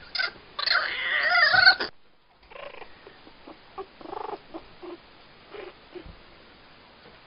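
A kitten and a puppy play-fighting. A loud, wavering animal cry lasts about a second and cuts off suddenly, followed by a string of short, quieter cries and growls.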